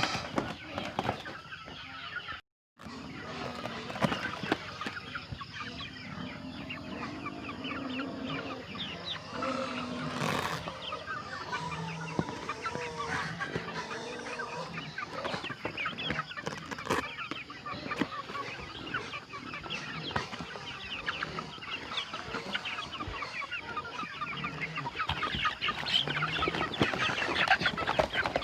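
A flock of two-month-old crossbred Asil chickens clucking and cheeping, many short calls overlapping without a break, except for a brief gap about two and a half seconds in.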